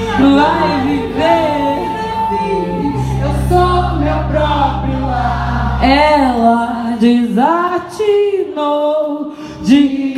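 Live band with several women's voices singing into microphones. The low bass notes stop about six seconds in, and the voices carry on with sliding, gliding melodic lines.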